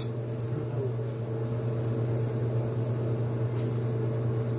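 Steady low electric hum of a kitchen appliance motor running, with no change in pitch or level.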